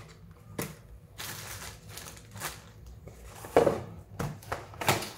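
Small camera accessories and their plastic packaging being handled: a spell of plastic crinkling and several sharp clicks and knocks, the loudest about three and a half seconds in.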